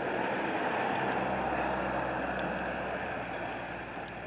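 Steady rumble of a vehicle engine with wind noise on the microphone. A low hum sets in about a second in, and the whole sound eases off slightly toward the end.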